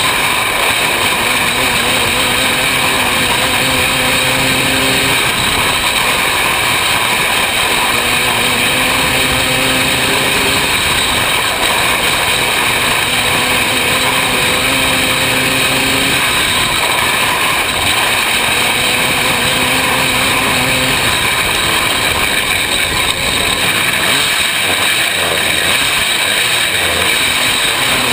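Open-class 500cc micro sprint car's engine running hard, heard on board, its pitch rising and falling every few seconds as the throttle goes on and off through the turns.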